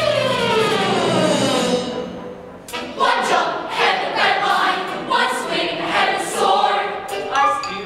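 Youth theatre cast singing together in chorus with musical accompaniment. The first two seconds are one long glide falling in pitch, followed by rhythmic group singing.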